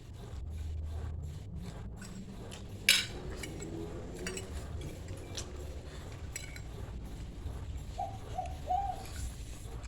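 Cutlery clinking against a bowl while noodles are eaten, with one sharp clink about three seconds in and scattered lighter taps.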